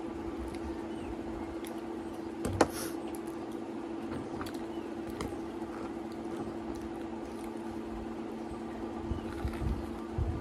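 Quiet eating sounds, chewing and fingers picking food from a bowl, over a steady low hum, with one sharp knock about two and a half seconds in.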